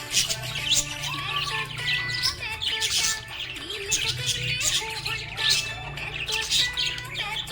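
Budgerigars chirping and warbling in a dense, continuous stream of quick high chirps and short whistled notes, over a steady low hum.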